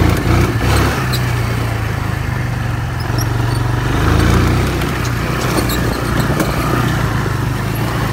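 ATV engine running while the four-wheeler drives over rough grass, its pitch shifting with the throttle about halfway through, with scattered small clicks and rattles.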